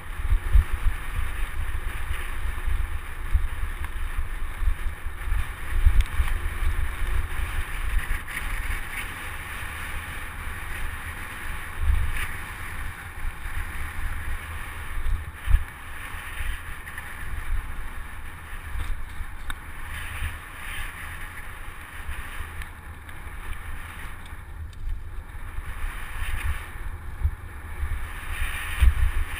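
Wind buffeting the microphone of a camera on a mountain bike riding fast along a dirt forest road, a gusty rumble over the steady noise of the tyres running on the dirt.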